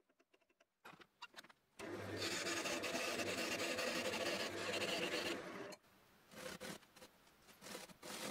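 Wood lathe running while a cloth or paper towel is rubbed against the spinning turned finial: a steady hiss over a low motor hum for about three and a half seconds, then shorter scuffs and rubs near the end.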